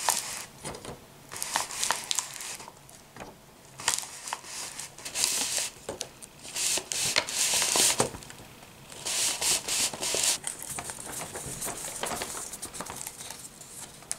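Paper rustling and rubbing as it is fed by hand crank through a K'nex rotary press, between its felt-covered pressure drum and wine-bottle plate, with scattered sharp clicks.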